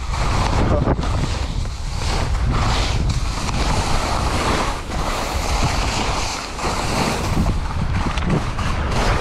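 Skis scraping and sliding over snow during a downhill ski run, under heavy wind noise on the microphone, surging and easing with the turns.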